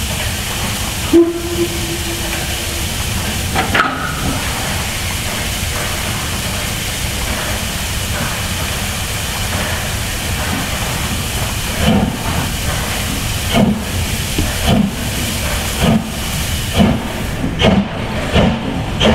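HSB metre-gauge 2-10-2T steam tank locomotive 99 7247-2 starting a train: a short, deep whistle about a second in, then steady hissing from the open cylinder drain cocks. From about two-thirds of the way through, slow exhaust chuffs begin and quicken as the locomotive gets under way.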